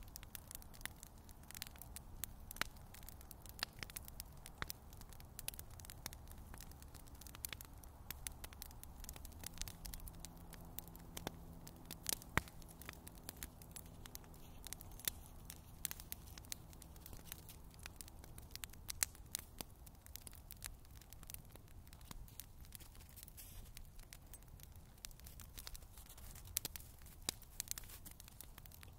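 Bonfire crackling, with frequent sharp pops and snaps. A faint, low, steady-pitched engine drone comes in about ten seconds in and fades out after about nine seconds.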